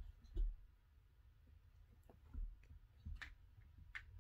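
Kittens play-fighting on a rug: quiet, scattered soft thumps of paws and bodies landing, with a couple of sharp clicks near the end.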